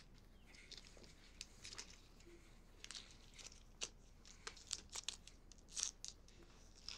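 Faint, irregular crinkles and rustles of handling: a thin plastic tie and clothing being worked around a person's wrists.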